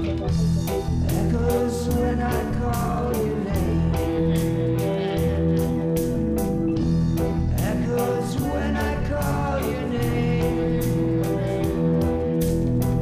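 Band music soundtrack with a steady drum beat, guitar and a singing voice.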